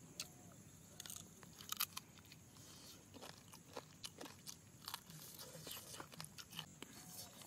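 A person chewing and biting into charred tandoori chicken, with small irregular crunching clicks.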